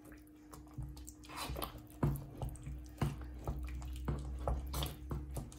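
A wooden spoon stirs thick, sticky muscat halwa with melting ghee in a heavy pot, making wet squelching smacks and sharp clicks against the pot, irregular and several a second at times. A faint steady hum runs underneath.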